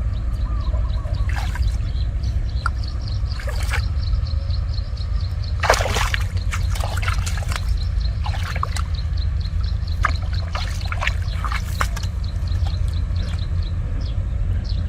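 Shallow water in a flooded rice field sloshing and splashing in short irregular bursts as someone moves through it by hand, the biggest splash about six seconds in, over a steady low rumble.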